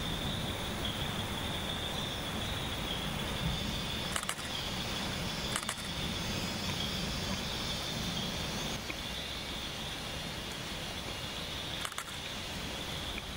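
Camera shutter clicking three times, each a quick double click, over a steady high hum and a low rumble.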